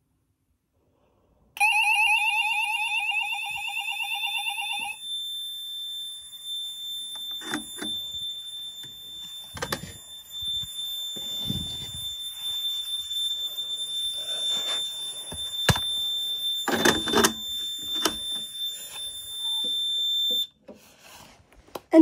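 A fire alarm wall sounder on a conventional fire alarm system goes off in a test, starting about a second and a half in. It gives a loud warbling alarm tone for about three seconds, then stops. A steady high-pitched tone carries on, with scattered clicks and knocks, until it cuts off near the end.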